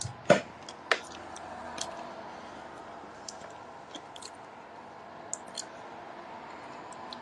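A few sharp clicks: two loud ones in the first second, then fainter scattered ticks over a faint steady hum.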